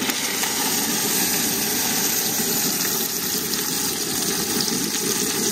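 Elk roast searing in hot bacon fat in a cast-iron Dutch oven: a steady sizzle that starts as the meat is laid in.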